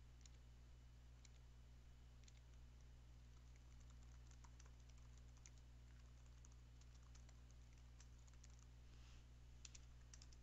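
Faint computer keyboard typing: scattered irregular keystrokes, thickest in the middle of the stretch, over a low steady hum.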